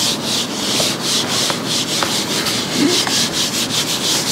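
Whiteboard eraser rubbing across a dry-erase whiteboard in quick back-and-forth strokes, about four a second, as the board is wiped clean.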